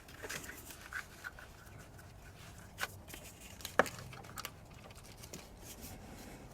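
Hands handling wiring and small hardware under the hood: faint rustling with a few light clicks, the sharpest nearly four seconds in.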